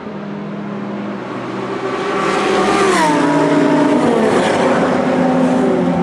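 Several endurance race cars passing one after another at speed on the main straight, their engines growing louder as they approach. Each engine note drops in pitch as its car goes by: about three passes between roughly 3 and 5.5 seconds in.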